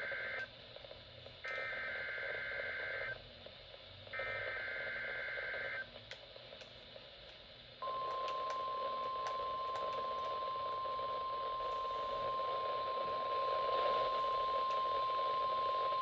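NOAA Weather Radio test signal heard through a radio receiver with background hiss. First come three short bursts of warbling SAME data tones, the first already under way. After a pause of about two seconds, the single steady warning alarm tone (the 1050 Hz weather radio alarm) starts and holds to the end.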